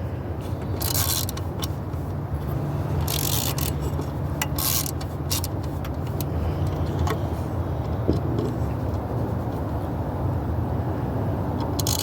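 A hand ratcheting screwdriver clicking in several short bursts as screws are driven, over a steady low hum.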